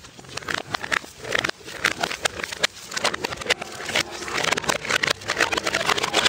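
Aluminium drink cans clattering down stone steps: a fast, irregular run of sharp metallic knocks and rattles that grows denser and louder toward the end.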